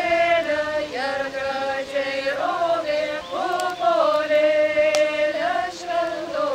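A group of women singing a Lithuanian folk song together without accompaniment, in long held notes that glide from one pitch to the next.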